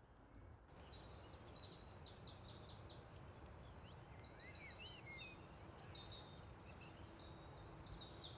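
Faint outdoor birdsong: quick high chirps and trills in repeated runs, starting about a second in, over a low steady rumble of ambience.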